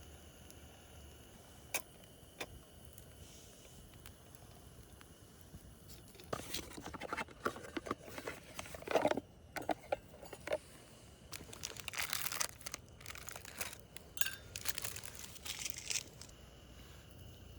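Two faint clicks, then about ten seconds of irregular crinkling and rustling in bursts, like something being handled or crumpled.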